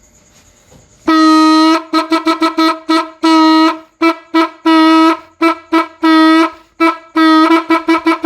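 Homemade horn sounding one unchanging note in a rhythm, starting about a second in: long blasts alternating with quick runs of short toots.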